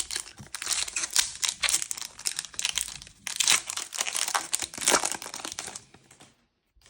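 A trading-card booster pack wrapper being torn open and crinkled by hand: a dense, irregular crackling that fades out about six seconds in.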